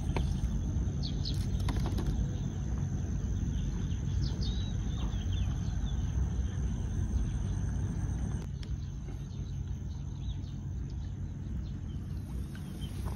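Riverside outdoor ambience: a steady low rumble with a few faint bird chirps in the first half.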